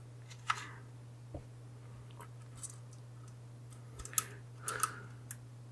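A few light, scattered clicks and ticks of a small hand tool picking at a laptop's internals, with a small cluster about four to five seconds in, over a steady low hum.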